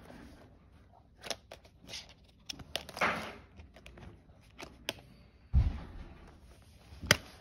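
Plastic Blu-ray case being handled and opened, with scattered small clicks and snaps, a short rustle about three seconds in, a dull bump past the middle and a sharp click near the end.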